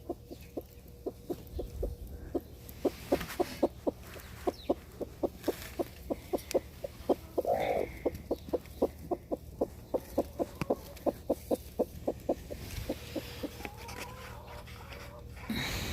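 Broody hen sitting on eggs clucking in a long, even run of short low clucks, about three a second, with one longer, louder call about midway.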